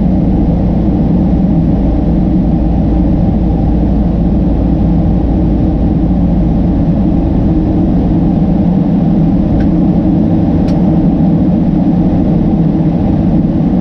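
Steady, deep cabin noise of a Boeing 767-300ER in flight at altitude, heard from a window seat over the wing: engine drone blended with airflow, unchanging throughout. Two faint clicks about a second apart come about two-thirds of the way in.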